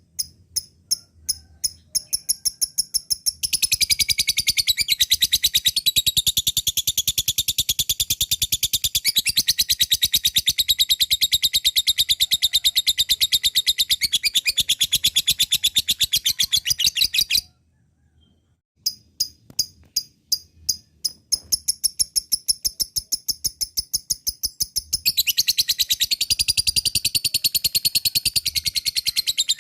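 Lovebird ngekek: a long, rapid, high chattering trill. Spaced chirps speed up into a continuous run lasting about fourteen seconds that stops abruptly; after a short pause the chirps start again, quicken, and run together into another continuous trill near the end.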